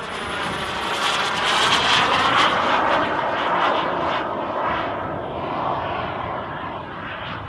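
Xcalibur RC model jet's Swiwin SW120B turbine flying past. The jet noise swells to its loudest about two seconds in, then slowly fades, with a faint high turbine whistle in the first second or so.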